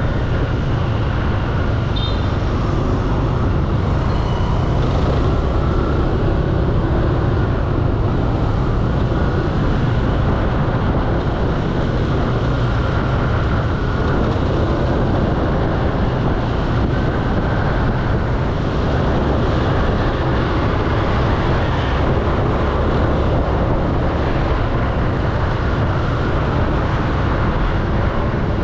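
Steady road noise from riding a motor scooter through city traffic at about 30 km/h: a constant low rumble with other motorbikes and cars around.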